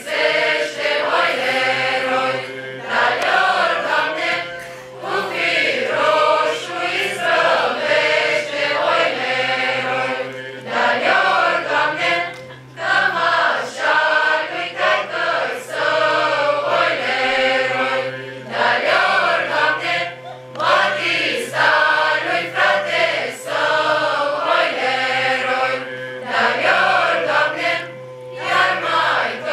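A mixed choir of young male and female voices singing a Romanian Christmas carol (colind), in phrases broken by short pauses.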